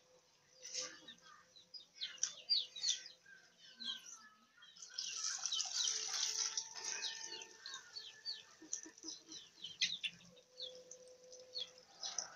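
Birds chirping: many short, quick, falling chirps, busiest in a dense flurry around the middle.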